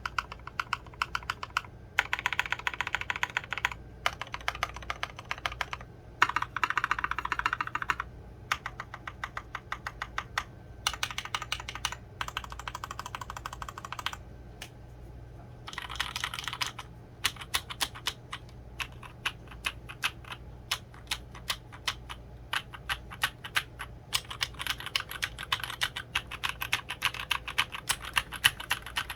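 Mechanical keyboard typing test on a KBDfans Endless-80 with an aluminium plate, NovelKeys Cream linear switches and doubleshot ABS keycaps. The keys are typed in quick runs of clacks, with short pauses between the runs.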